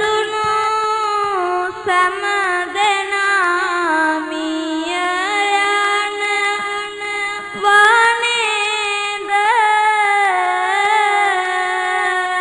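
A young Buddhist monk's voice chanting Sinhala kavi bana verse, one unaccompanied voice holding long drawn-out notes that glide slowly up and down.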